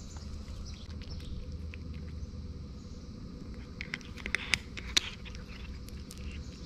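Tuxedo cat eating dry kibble off concrete, with scattered crunches as it chews and a cluster of louder crunches and clicks about four to five seconds in.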